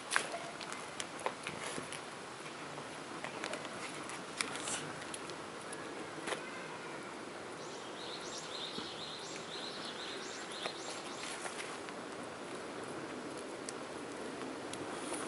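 Steady outdoor background noise with scattered sharp clicks, and a run of short, high chirps starting about eight seconds in and lasting some four seconds.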